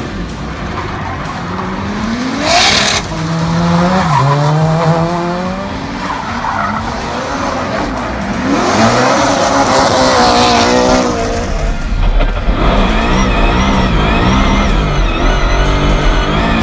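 Drift cars sliding: engines revving up and down with bursts of tyre squeal and skidding. Near the end the engine is heard from inside the cabin as a steadier, wavering rumble.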